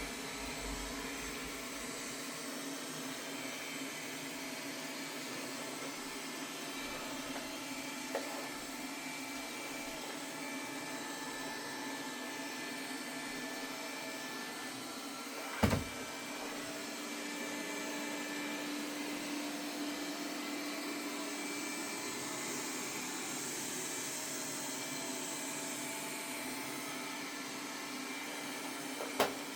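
Samsung Steam AI Ultra robot vacuum running steadily, a fan hum with a few faint whining tones. Two sharp knocks, about halfway and near the end, stand out above the running.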